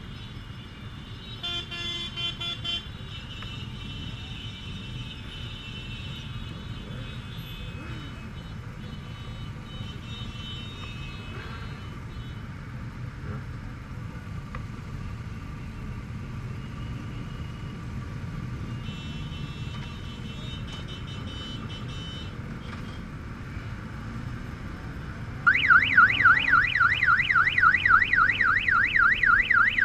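Motorcycle engine and road noise from a Honda Gold Wing 1800 riding in a pack of bikes. About 25 seconds in, a loud electronic alarm starts, its pitch warbling rapidly up and down, about four sweeps a second.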